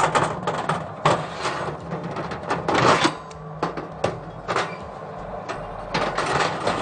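Clanks, clicks and rattles of an oven rack and door being handled as a baking dish is slid into a wall oven, as a string of sharp knocks, the loudest about a second in and about three seconds in.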